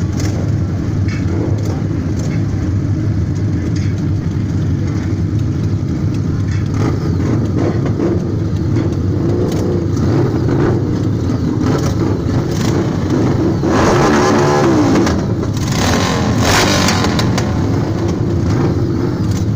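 Harley-Davidson motorcycle engines running steadily at idle, with riders blipping the throttles; two louder revs, one about fourteen seconds in and another a couple of seconds later.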